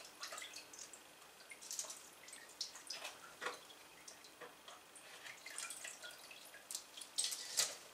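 Stabilising resin (Cactus Juice) dripping off a soaked pine cone back into a metal pot: faint, irregular drips and small ticks as the excess drains off.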